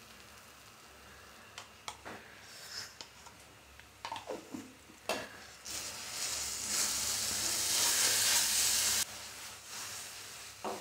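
Ghee sizzling in a nonstick pan of grated carrot halwa as a silicone spatula stirs it through, with a few soft taps of the spatula in the first half. The sizzling swells about halfway through and cuts off suddenly about three seconds later, leaving quieter stirring.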